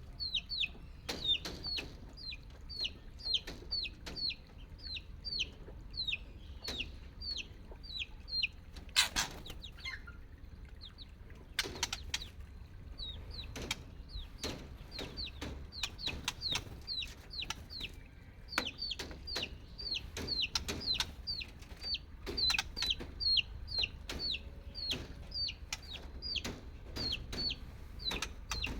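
Chicks peeping over and over, each peep a short high note falling in pitch, about two to three a second, with brief pauses and a few sharp clicks among them.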